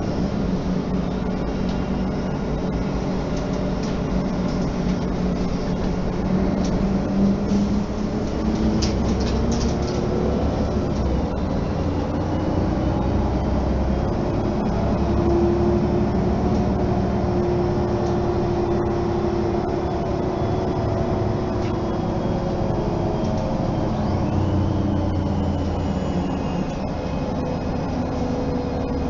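Mercedes-Benz O 530 G articulated bus heard from inside the passenger cabin while under way: engine and drivetrain running with road rumble, the engine note rising and falling as the bus changes speed. A few light clicks or rattles come about a third of the way in.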